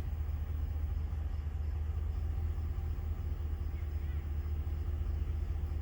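Ram 1500 pickup's engine idling, a steady low drone.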